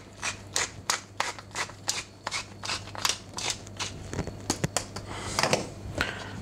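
Wooden pepper mill grinding black pepper, a dry rasping crunch with each twist, about three or four a second. The grinding stops about four seconds in, followed by a few light knocks and rustling.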